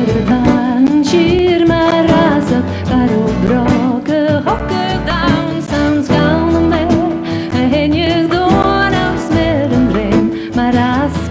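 A woman singing a Gaelic song over a traditional Scottish folk band, her voice carrying a sustained, wavering melody above the instruments.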